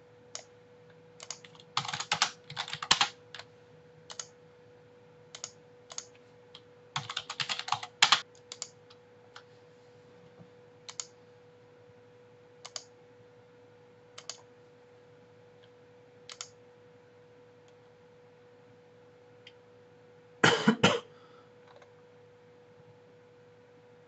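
Computer keyboard typing in short bursts, with single clicks a second or two apart between them. A faint steady tone hums underneath.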